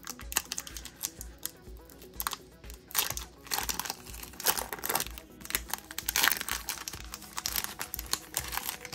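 Foil wrapper of a Pokémon TCG booster pack being torn open and crinkled by hand, a rapid run of sharp crackles coming in clusters.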